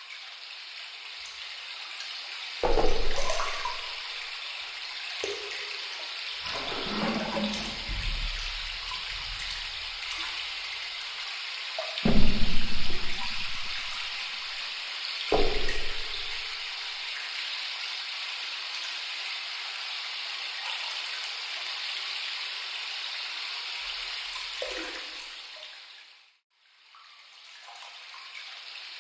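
Steady rush of running water in a small room, with several low thumps and bumps, the loudest about 3 and 12 seconds in; the sound cuts out briefly near the end.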